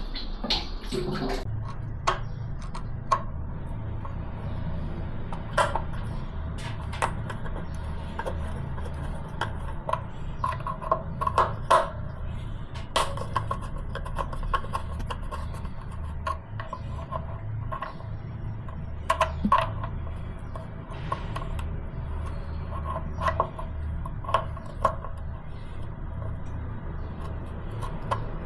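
Scattered metallic clinks and taps, some ringing briefly, over a steady low hum: tools and metal fittings being handled during plumbing work.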